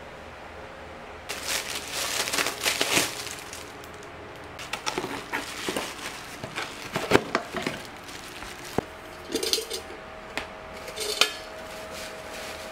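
Hands handling packaging and kitchenware: cardboard and plastic wrap rustling and crinkling in bursts, then a few sharp clinks from a stainless-steel coffee canister and its clamp lid, one followed by a faint ring.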